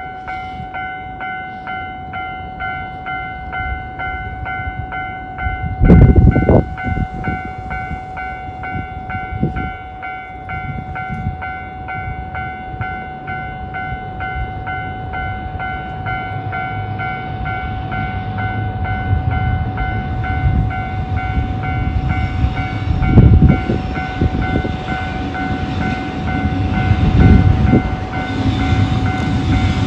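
Japanese level-crossing warning bell ringing its standard electronic tone in a steady, even rhythm. Under it a low rumble builds toward the end as a freight train draws near. There are loud low thumps about six seconds in and again around 23 seconds.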